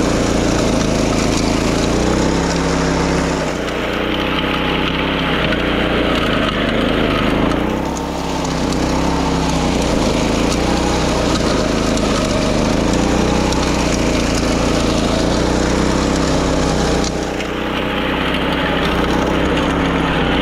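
Small gasoline engine of a walk-behind wing mower running steadily while mowing grass on a rice-paddy levee. Its note shifts a few times along the way.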